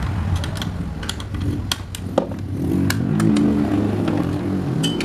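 Scattered light clicks and knocks of an electric-fan motor and its plastic and metal parts being handled and fitted together, over the low rumble of a motor vehicle engine that grows louder about halfway through.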